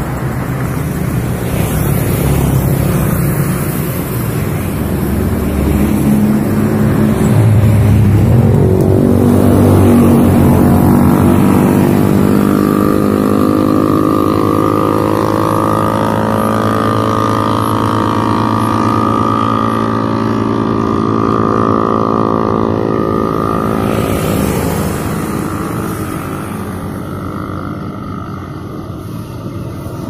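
Road traffic: cars driving past close by, then a long engine drone with a steady pitched hum that builds from about eight seconds in and fades after about twenty-four seconds.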